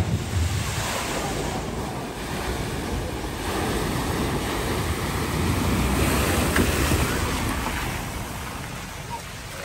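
A car ploughing through a deep flooded ford, pushing a bow wave. The water rushes and splashes steadily, swells about three and a half seconds in, and eases off near the end.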